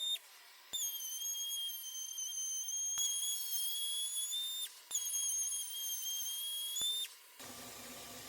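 A steady, high-pitched electronic or whistle-like tone with a slight waver. It sounds in stretches of two to four seconds, broken by short gaps, with faint clicks at the breaks, and stops shortly before the end.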